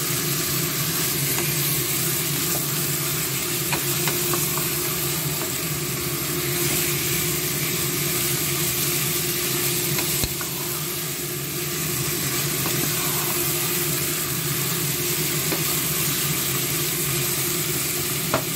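Chicken pieces sizzling steadily as they fry in a nonstick pot over raised heat, with a wooden spatula stirring and scraping now and then and a light knock about ten seconds in.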